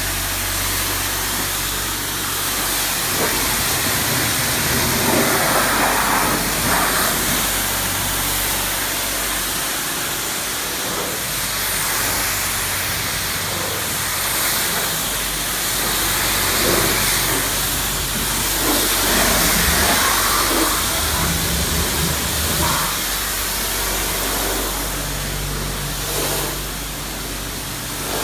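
High-pressure washer wand spraying a car's bodywork: a steady hiss of the water jet that swells and eases as the spray moves across the panels, over a low steady hum.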